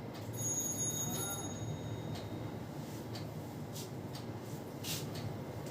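Hands working a head massage: scattered sharp taps and rustles on the hair and scalp, about one a second in the second half, the strongest about five seconds in, over a steady low background hum. A thin high-pitched tone sounds briefly near the start.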